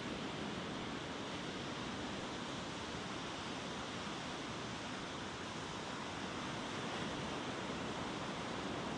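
Ocean surf breaking on a sandy beach, a steady rushing wash with no distinct individual wave crashes.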